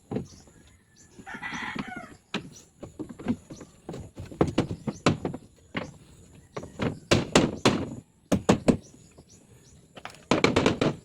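Irregular knocks and bangs of demolition and repair work, some in quick clusters. A short pitched call, like a bird's, sounds about one and a half seconds in.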